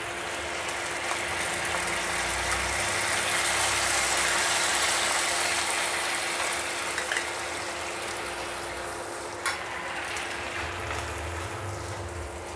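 Soy-and-kalamansi sauce simmering and sizzling in a nonstick frying pan, swelling a little in the middle, with a steady hum underneath. A spoon scrapes in the pan as liver spread is added, and there is one sharp knock about nine and a half seconds in.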